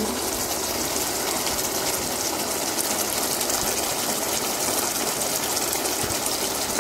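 Chicken curry sizzling and bubbling in an electric cooking pan: a steady hiss with fine crackle.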